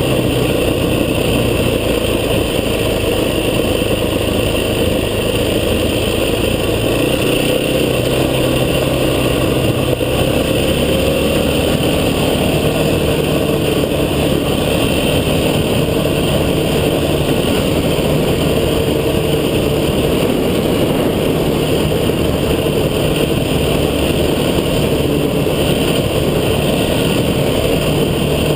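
A vehicle engine running steadily under way on an off-road track, its engine note shifting in pitch about ten seconds in.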